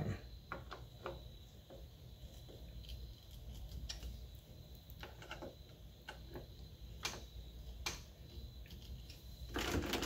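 Screwdriver snugging down the mounting screws of a lever-handle lockset's trim: faint scattered clicks and scrapes of the bit turning in the screw heads, with a few sharper clicks.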